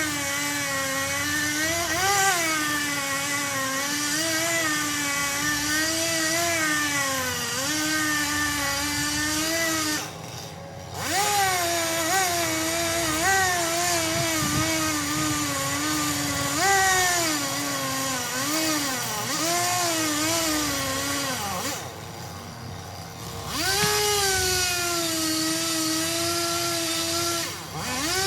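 Two-stroke chainsaw running at high revs, its pitch rising and sagging again and again as the chain bites into wood. It drops away twice, about ten seconds in and again near the twenty-two-second mark, then revs back up.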